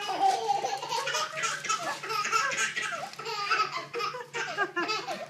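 Baby laughing, a run of short high-pitched laughs.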